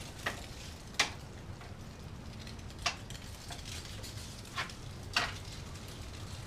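Metal hardware and hand tools clinking as they are handled: about six short, sharp clinks at irregular intervals, the loudest about a second in.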